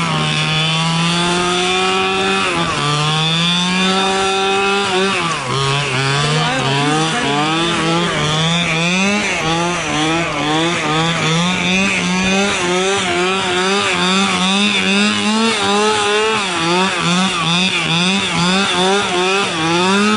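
Small two-stroke petrol engine of a large-scale RC buggy running hard, its revs rising and falling in quick, repeated blips of the throttle, with a steady high rev held near the end.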